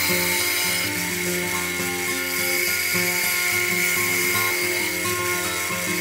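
Background music plays over a small bandsaw running with a steady whine as it cuts a wooden pattern.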